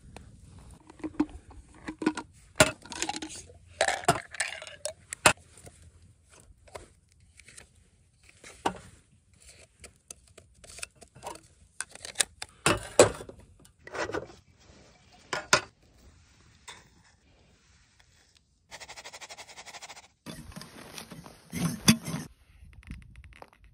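Irregular clinks, knocks and scrapes of hard objects being handled, with two short stretches of steady hiss a little before the end.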